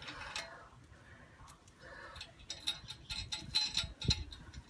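Light, irregular metallic clicking and clinking of hand tools and washers on a car's front wheel hub while a replacement wheel stud is being fitted, growing busier in the second half, with one dull knock about four seconds in.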